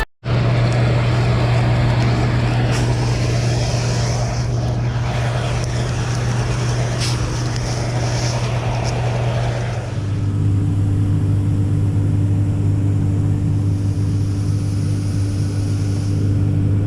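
Large farm diesel engine running steadily under load, its drone dropping to a lower pitch about ten seconds in.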